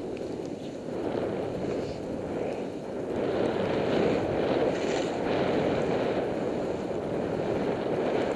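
Skis running and swishing through deep powder snow, with wind rushing over the microphone from the downhill speed; the rush grows louder about three seconds in.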